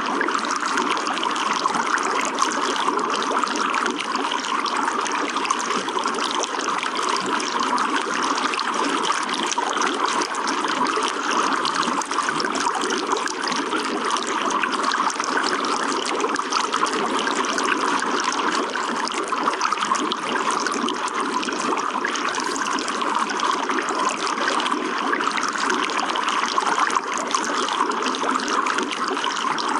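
Running water trickling and splashing steadily, without a break.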